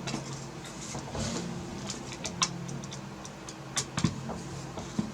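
Scattered light clicks and taps of small screws and graphics-card parts being handled while the last screws are fitted, over a faint steady hum.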